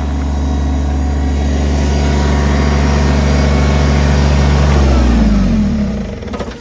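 Electric chainsaw motor running steadily at speed with a level hum, then shifting in pitch and dying away about six seconds in.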